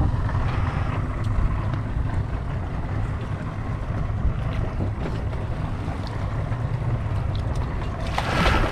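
Wind buffeting the microphone over sea water washing against a small boat's hull: a steady rushing noise that swells louder near the end.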